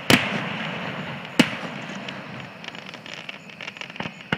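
Fireworks finale: two loud aerial shell bursts about a second and a half apart, each followed by a fading crackle, then a growing run of quicker, smaller pops and crackles near the end.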